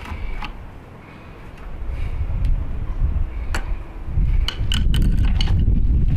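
Scattered sharp metallic clinks and knocks over a low rumbling noise that grows louder about four seconds in.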